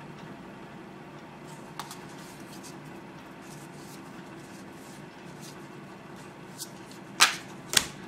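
Tarot cards being handled: faint light ticks as cards are moved over a steady low hum, then two sharp card snaps about half a second apart near the end as cards are slapped or flicked off the stack.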